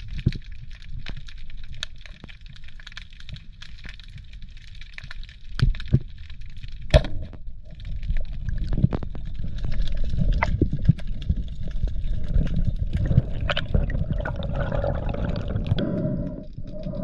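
Underwater sound through a freediver's camera: low rumbling water noise with scattered sharp clicks and knocks, one sharp click standing out about seven seconds in. The water noise grows louder from about eight seconds in, and a steady pitched hum joins near the end.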